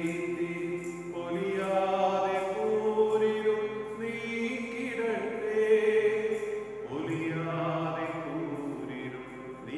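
Slow liturgical singing: a voice holding long notes at shifting pitches, with a new phrase starting about seven seconds in.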